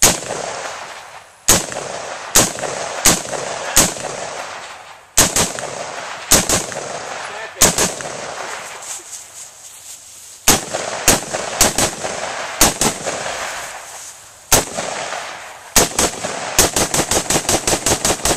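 Gunshots: a string of single shots at uneven spacing, then a fast run of about a dozen shots near the end, each shot trailing off in an echo.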